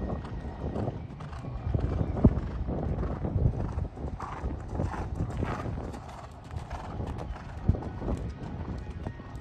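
A show-jumping horse's hooves cantering on a sand arena: a running beat of soft low thuds. Two sharper knocks stand out, one about two seconds in and one near the end.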